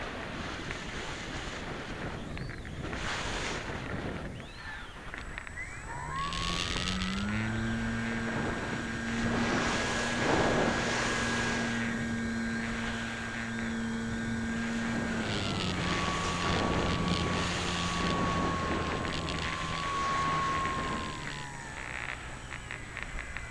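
ParkZone Radian electric glider's brushless motor and propeller, with wind rushing over the microphone. About a quarter of the way in the motor whine rises as it spins up and holds steady, then steps down to a lower pitch about two-thirds of the way through as the throttle comes back, and dies away near the end.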